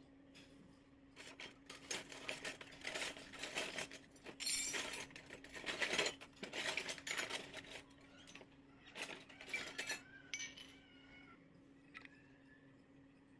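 Small toy kitchen pieces being handled, a run of clicks, clinks and rattles, with a brief wavering high tone about ten seconds in, over a low steady hum.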